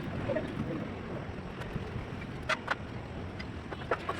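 Brickwork taps: a few sharp knocks of a trowel on brick, two close together about two and a half seconds in and two more near the end, over a steady background hum.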